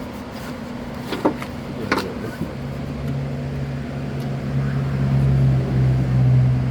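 Two sharp clicks in the first two seconds, then a low steady hum of a vehicle engine sets in about two and a half seconds in and grows louder.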